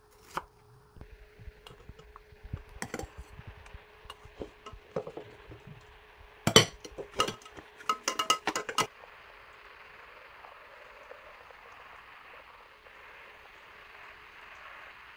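A knife taps through strawberries onto a wooden cutting board. About six and a half seconds in, a metal spoon knocks and clinks against a glass bowl several times as whipped cream is scooped into a piping bag. After that there is only a steady soft hiss.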